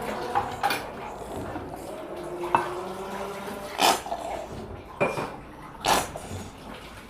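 A spoon or container knocking and clinking against a bowl several times, spaced a second or so apart, while cream is added to a slime mixture.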